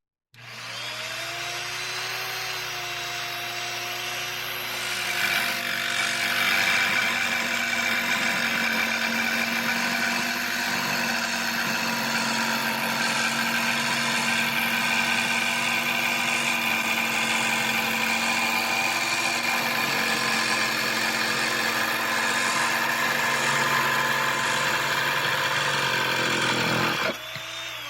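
Electric jigsaw motor starting with a rising whine, then running steadily. About five seconds in it turns louder and rougher, and near the end it is switched off and begins to wind down with a falling pitch.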